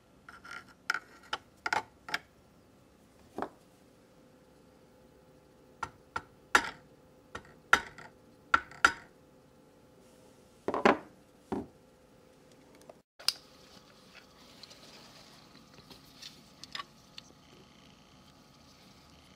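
Sharp, irregular knocks and clacks as a screwdriver is driven against the plastic knockout plug in the dishwasher inlet of an InSinkErator garbage disposal. After a brief cut, faint rustling and a few light ticks follow as the plug is handled.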